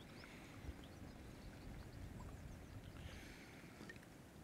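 Near silence: faint outdoor lakeside ambience, a low steady rumble with a few faint, short high chirps.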